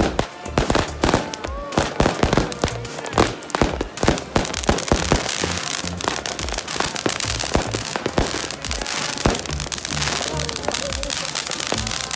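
Ground fireworks going off on pavement. A string of sharp bangs comes first, then a dense, continuous crackling from about four seconds in as the fountains and firecrackers burn out in showers of sparks.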